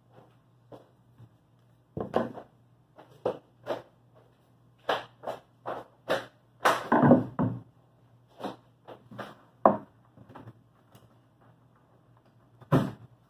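Irregular knocks, taps and scrapes of a plywood bulkhead being handled and fitted into a plywood skiff hull, loudest in a cluster about seven seconds in and with one more sharp knock near the end. A steady low hum runs underneath.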